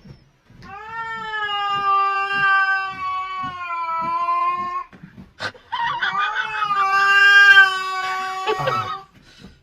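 Cat yowling: two long, drawn-out, steady calls of about four and three seconds, with a short click between them.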